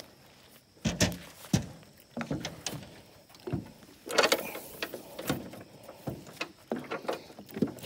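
Irregular knocks and thumps on a small aluminum jon boat's hull and seats as people step about in it and handle gear, about a dozen hits spread unevenly.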